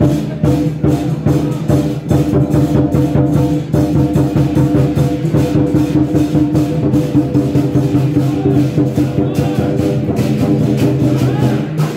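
Loud traditional temple ritual music: rapid, dense drum and percussion beats under a sustained, steady wind-instrument tone.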